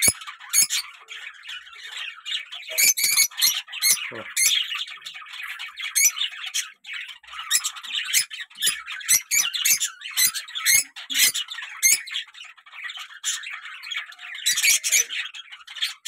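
Rosy-faced (peach-faced) lovebirds chattering without a break, in rapid harsh squawks mixed with many sharp high chirps.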